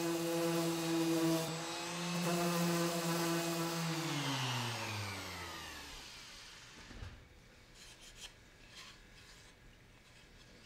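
Bosch random orbital sander running against a painted wooden panel with a steady motor hum. About four seconds in it is switched off and winds down in falling pitch to a stop. A few light clicks of handling follow.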